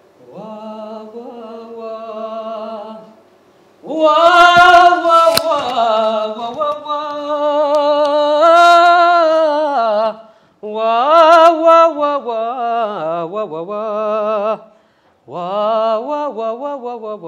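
A man singing unaccompanied, an improvised Ethiopian-style melody of long held notes with a wavering, ornamented vibrato. It comes in four phrases with short breaths between them, the second phrase the loudest.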